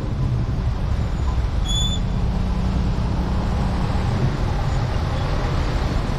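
Motorcycle ride in slow, stop-and-go traffic: a steady low rumble of the bike's engine and surrounding vehicles on a wet road. A brief high-pitched squeak sounds a little under two seconds in.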